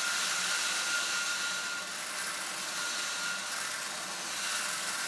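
Vacuum motor of a Sovda de-stoner coffee bean lift running steadily, with the rushing hiss of air and coffee beans being sucked up the conveying tube. A faint whine fades out a little past halfway.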